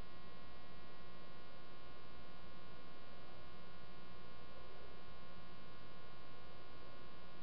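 Steady electrical mains hum with a buzzy edge, an unchanging drone with many overtones and nothing else standing out.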